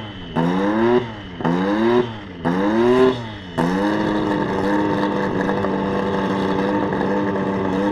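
Lotus 98T Formula One car's 1.5-litre twin-turbo Renault V6 being revved: three sharp throttle blips, each rising and falling in pitch about a second apart. From about halfway in, the engine is held at steady high revs.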